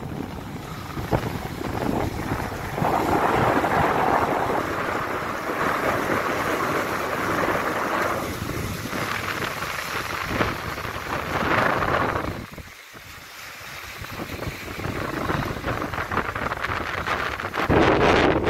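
Wind buffeting the microphone over small sea waves washing and breaking on a rocky shore, rising and falling in surges, with a short lull about two-thirds of the way through.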